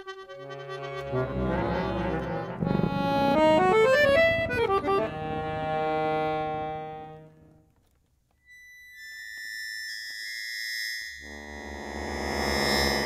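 Chromatic button accordion playing dense chords and fast runs that climb and fall, in a contemporary piece for accordion and tape. It fades out about eight seconds in, then high held tones enter and a low chord swells near the end.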